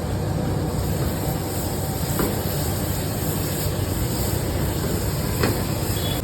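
Steady sizzling and rumbling of momos pan-frying over a gas burner, with two faint clinks about two seconds and five and a half seconds in.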